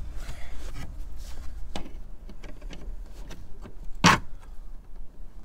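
Scattered small clicks and scrapes of steel snipe-nose pliers and copper disc rivets against fibre cement roof slates, with one louder knock about four seconds in.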